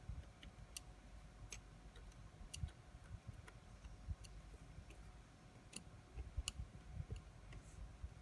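Faint, irregularly spaced light clicks of small metal tools touching and placing watch parts during work on an automatic watch movement, with low handling rumble beneath.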